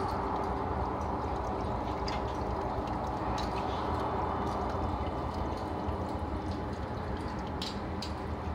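Aquarium water circulating: a steady bubbling, trickling wash over a low hum, with a few faint drips or ticks.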